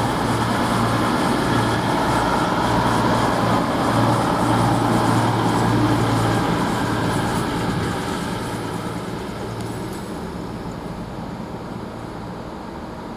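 CrossCountry Class 220 Voyager diesel-electric multiple unit running into the platform with a steady low engine hum. The sound eases off from about eight seconds in as the train slows to a stop.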